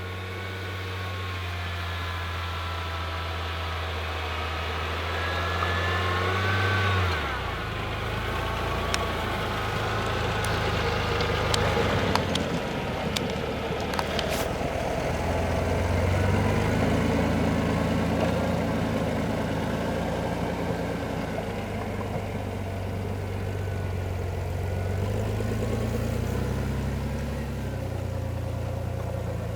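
Off-road vehicle engine running, its pitch dropping about seven seconds in and then rising and falling with the throttle. A few sharp clicks come through in the middle.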